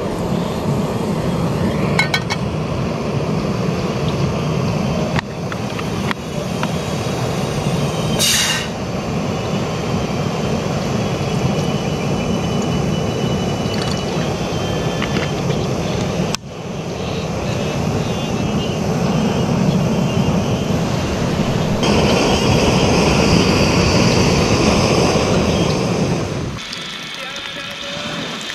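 Portable gas canister stove burner running steadily under an aluminium cooking pot, with a few light metal clinks from the pot. The burner noise drops away shortly before the end.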